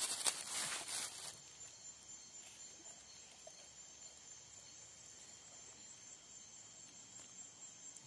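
Night insects chirring steadily in several high, unbroken tones. A burst of rustling close to the microphone fades out in the first second or so.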